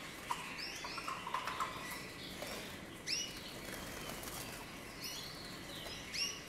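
Canaries in a flight cage giving a few short rising chirps, with wings fluttering as one is caught by hand.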